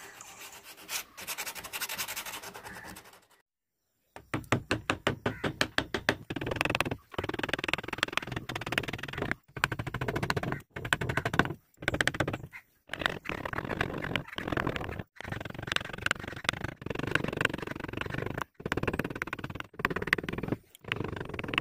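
Hand carving chisel cutting a groove into a wooden board: quick clicking strokes, then repeated scraping cuts, starting about four seconds in and broken off abruptly several times.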